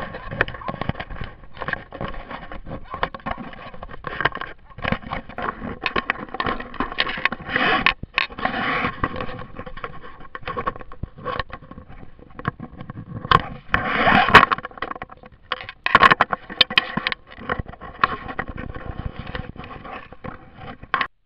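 Close handling noise on a small camera: fingers rubbing, scraping and knocking against the camera and its mount, an irregular run of clicks and scrapes with louder stretches about eight, fourteen and sixteen seconds in.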